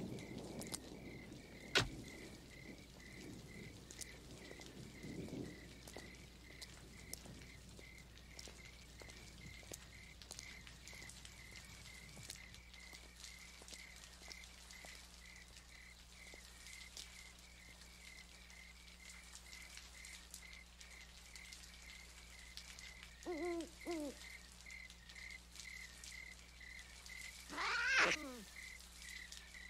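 Night-time crickets chirping steadily, about two chirps a second, with a sharp click about two seconds in. Near the end an animal gives two short cries and then a loud screech that falls steeply in pitch.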